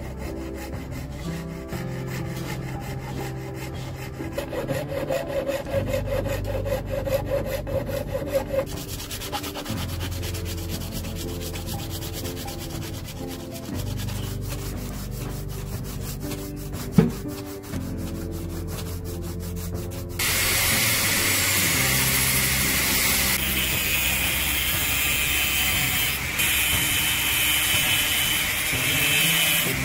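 Background music over hand-tool work: a small hacksaw rasping in quick strokes through thin metal sheet, then scraping on sandpaper. About twenty seconds in, an abrasive cutoff wheel starts cutting through a steel bolt with a loud, dense hiss that lasts to the end.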